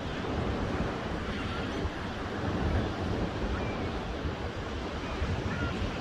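Ocean surf breaking on a sandy beach: a steady, unbroken rush of waves, with a low rumble of wind on the microphone.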